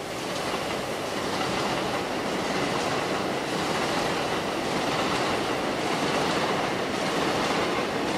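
A New York subway train running on the elevated line over Westchester Avenue. It grows louder over the first two seconds, then runs on steadily.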